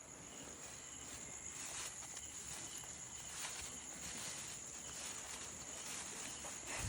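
Crickets chirring steadily in one high, continuous trill, with a few faint rustles.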